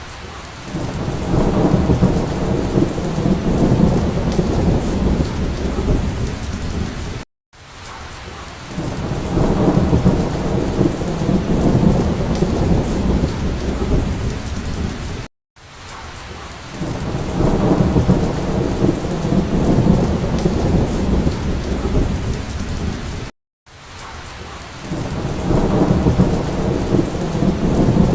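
Steady rain with a low, rolling thunder rumble. The same stretch of about eight seconds repeats over and over, each time cut off by a brief moment of silence.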